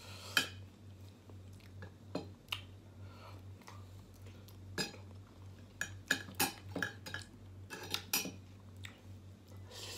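Metal spoon and fork clinking and scraping against dishes in scattered sharp clicks, busiest in the second half, over a low steady hum.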